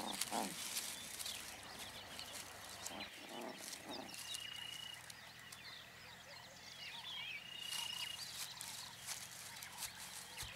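Bush ambience with birds calling: many short chirps, and a high, even whistle about a second long that comes three times. Light clicks and rustles run underneath.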